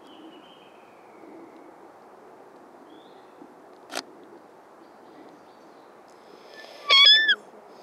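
A short, loud, high-pitched squeak near the end, sliding up then down, an attention noise to make a dog look toward the camera. Earlier, a single sharp click about four seconds in, over a quiet woodland background with a faint bird chirp at the start.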